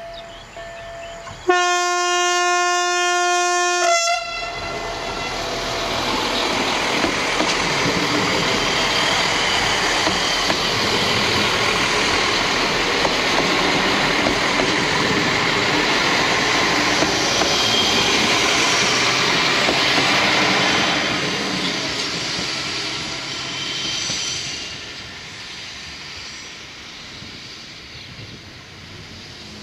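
A level-crossing electronic bell sounds a steady warning tone, then one long horn blast of about two and a half seconds, the loudest sound here, comes from two coupled SA132 diesel railcars. The train then passes with a rush of wheel and engine noise that fades away in the second half.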